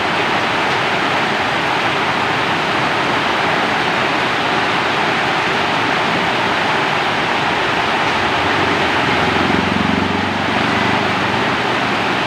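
Steady rainfall, an even hiss without a break, with a brief low rumble about nine seconds in.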